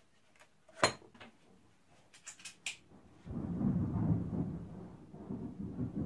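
Small metal tools clicking and clinking as they are picked out of a plastic socket-and-bit case, one sharp click about a second in and a quick cluster a second later. About halfway through, a steady rushing rumble starts suddenly and carries on.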